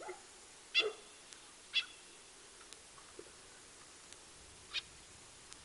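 Three short animal calls: two about a second apart, then a third about three seconds later.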